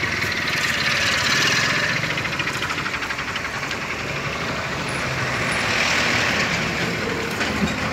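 Road traffic: motor vehicles passing by, their engine and road noise swelling up about a second in and again around six seconds, over a steady low rumble.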